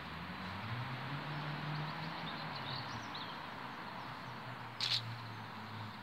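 Outdoor ambience of distant road traffic, a steady hiss with a low engine hum that slowly shifts in pitch, with a few faint bird chirps. A brief sharp noise stands out about five seconds in.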